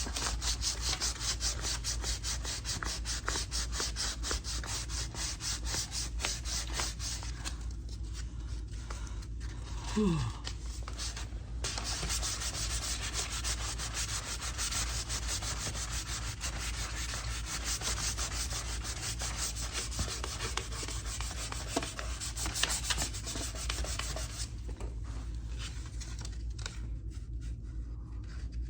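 Sandpaper rubbed by hand over the primed steel fender of a 1965 Chevrolet Corvair in quick, rhythmic back-and-forth strokes. The paper is clogging quickly with primer. The strokes stop for a few seconds about a third of the way in, where there is a short falling squeak, and stop again near the end.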